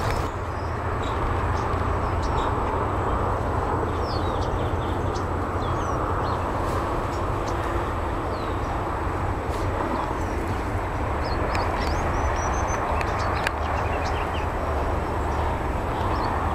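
Steady outdoor background noise, a low rumble under an even hiss, with a few faint, short high chirps now and then.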